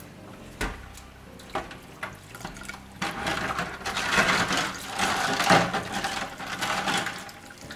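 Hands swishing small brass clock parts around in a tub of warm rinse water in a stainless steel sink: a few single knocks, then about four seconds of splashing and sloshing starting about three seconds in.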